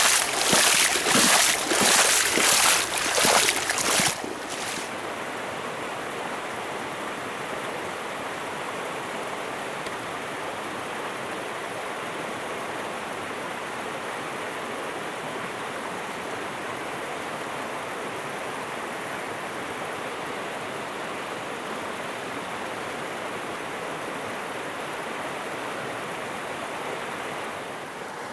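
River water running: a steady, even rush of flowing water. The first four seconds are louder, with irregular surging gusts over it.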